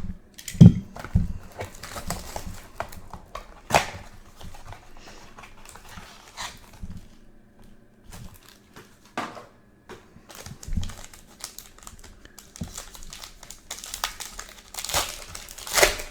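Plastic wrapping crinkling and tearing in short, irregular bursts, with scattered sharp clicks and handling knocks: a sealed trading-card box being unwrapped and opened by hand.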